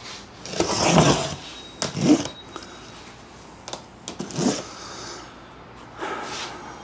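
A large cardboard box being cut and pulled open: a few separate scraping, rustling strokes, the loudest about a second in.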